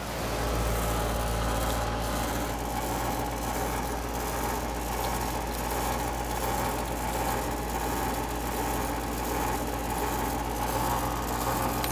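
Outdoor air-conditioning condensing unit running steadily: a constant compressor hum with the condenser fan whirring. The unit is back in operation on a newly replaced run capacitor.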